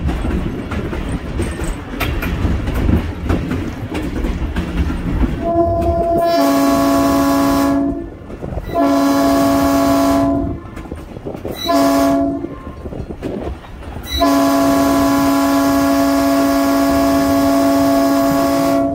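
Diesel locomotive running with wheels clicking over rail joints. About five seconds in, the horn of EMD RS-1325 #31 sounds two long blasts, a short one and a final long one: the standard grade-crossing signal.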